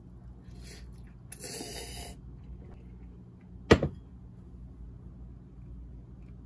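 A ceramic bowl set down on a wooden tray with one sharp knock a little under four seconds in. Before it, a brief hissing noise lasts about a second.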